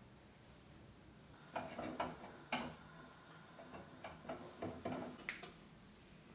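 A spoon clinking and knocking against a batter bowl and a non-stick frying pan. It is a string of sharp clinks and knocks with brief ringing, starting about a second and a half in and stopping near the end.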